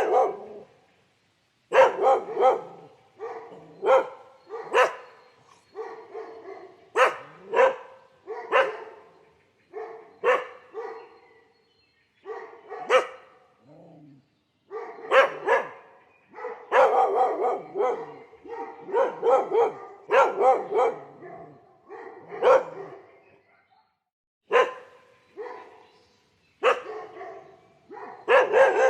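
A dog barking repeatedly, in single barks and quick runs of two or three, with short pauses between.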